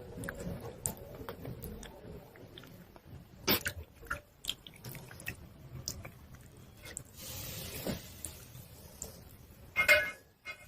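Chalk being chewed and crunched: scattered crisp crunches and clicks, with a sharper crunch about three and a half seconds in and a loud one near the end.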